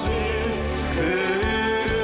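A Korean love song playing: a singing voice holding a note between lines over instrumental backing with a steady bass beat.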